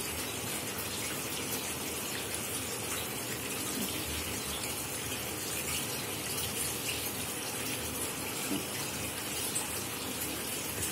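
Chicken roast sizzling steadily in its pot, an even continuous hiss.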